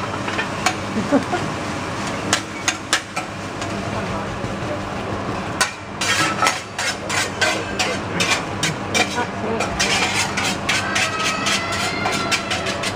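Metal teppanyaki spatulas clicking and scraping on a steel griddle as fried rice is chopped, spread and turned. The taps are scattered at first, then come in quick runs from about halfway through, over a steady low hum.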